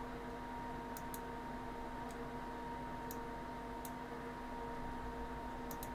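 Faint mouse clicks, about seven, scattered at irregular moments (a close pair about a second in, another pair near the end) over a steady electrical hum of a few fixed tones.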